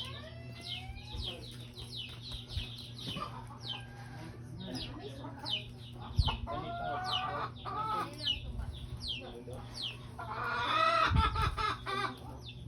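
Chickens clucking, with rapid high peeps that fall in pitch repeated throughout and louder calls in two spells, the second about ten seconds in. A steady low hum runs underneath.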